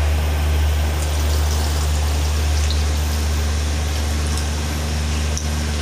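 Achuete (annatto) water poured through a small strainer into a metal wok, a steady trickling pour, over a loud, steady low hum.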